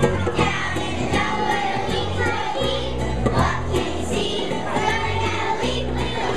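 A group of young children singing together as a choir over instrumental accompaniment.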